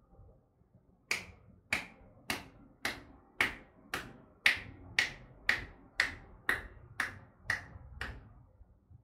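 Percussive massage on the forearm: the masseuse's clasped hands strike the arm in about fourteen sharp, evenly paced pops, roughly two a second, starting about a second in and stopping near the end.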